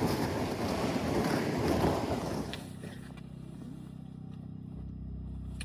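Wind buffeting the microphone with a rough, gusty rumble. About halfway through it cuts off abruptly, leaving a quieter steady low hum.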